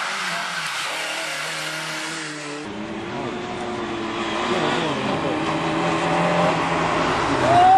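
Lada rally cars' four-cylinder engines at full throttle: one car's engine note runs for the first few seconds, then after a cut another approaches, its pitch rising and falling through gear changes and growing louder. A high tyre squeal sets in just before the end.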